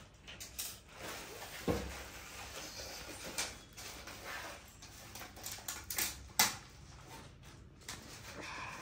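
Scattered knocks, clicks and rustling as items and packaging from a freshly opened parcel are handled.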